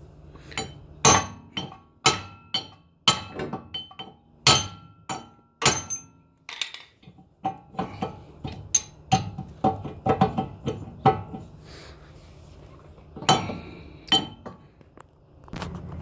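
Hammer blows on a steel wheel hub that may be seized in its knuckle, driving it out. The blows come in an irregular run of sharp, ringing metal strikes, several in quick succession, with a pause before a final few hard hits.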